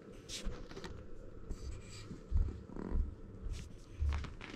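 Kittens moving about on a lap against the microphone: a few heavy low bumps and scratchy rustling of clothing fabric, with small clicks.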